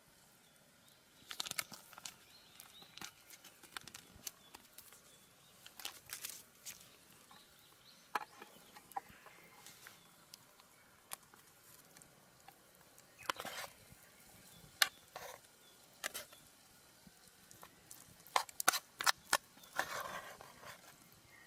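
Irregular rustling and crinkling with scattered light clicks, in short clusters separated by quiet, busiest near the end.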